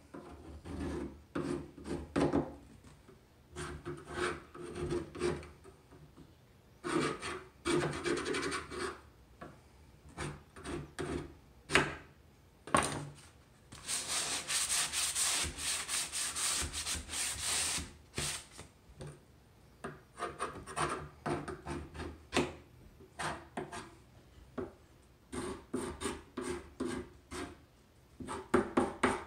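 Short, repeated scraping strokes of a hand scraper along the painted wooden legs of a chair, chipping the paint off for a distressed look. Around the middle there are about four seconds of steady, faster rubbing with a sanding sponge, the loudest part.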